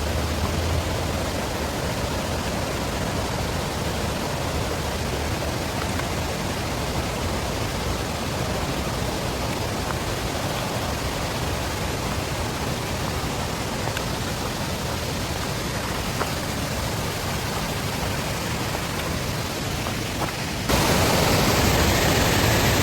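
Small waterfall running high after days of heavy rain: a steady rushing of falling water. Near the end it jumps suddenly louder and brighter.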